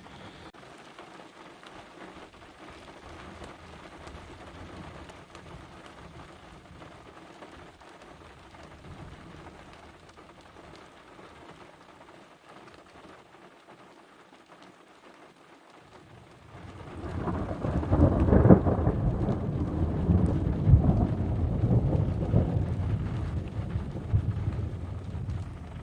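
Steady rain during a thunderstorm, then about seventeen seconds in a loud roll of thunder breaks out and keeps rumbling, slowly easing off.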